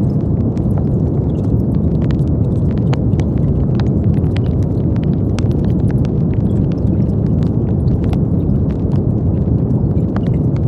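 Brown noise: a steady, deep rushing noise weighted heavily toward the low end, with faint scattered clicks on top.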